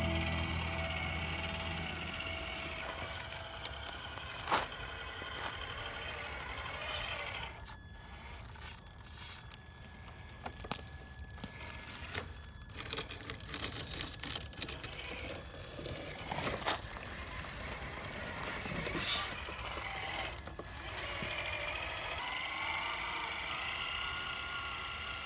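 Faint whine of a Traxxas TRX-4 RC crawler's electric motor and gears as it drives over dirt, with scattered clicks and knocks, and a brief whine that rises and falls a little past the middle.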